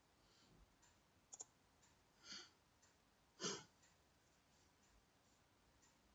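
Computer mouse button clicks, a quick double click about a second and a half in and another right at the end, over near silence. Between them a person breathes out twice in short puffs, the second louder.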